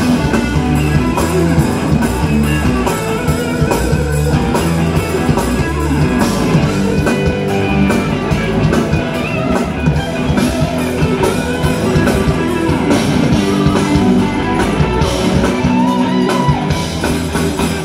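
Live rock band playing electric guitars over a driving drum kit. The music stops abruptly at the very end.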